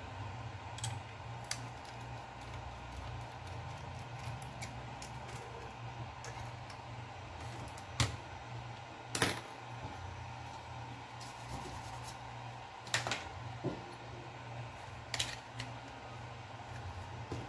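Scattered small clicks and taps of tools on the laptop DVD drive's small metal and plastic parts as its mounting bracket is taken off, with a few sharper clicks about 8, 9, 13 and 15 seconds in, over a low steady hum.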